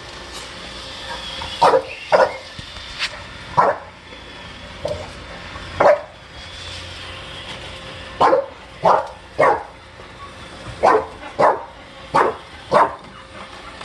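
Pet dog barking at a Roomba robot vacuum: about a dozen short, sharp barks in irregular groups, several coming in quick pairs.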